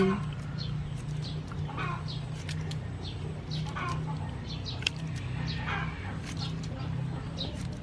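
Chickens clucking, a string of short calls repeating every half second or so, over a low steady hum.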